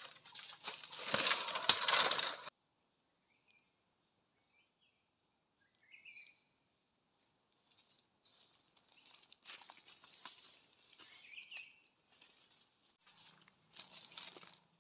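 Dry bamboo stalks and leaf litter crackling and rustling as a knife hacks at a bamboo clump, loud for about two and a half seconds and then cut off. After that comes a steady high insect buzz with a few short bird chirps, and more rustling near the end.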